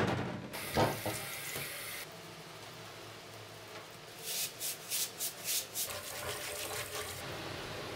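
A steel drawknife blade knocks against a stainless steel sink, then white powder is shaken onto it in a run of quick shakes, and about six seconds in tap water runs into the sink as the blade is scrubbed with a scouring pad.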